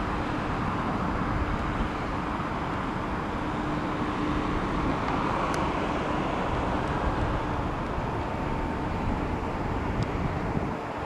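Jet engines of a low-flying Boeing 747 heard at a distance: a steady rumble with a faint hum that fades about halfway through.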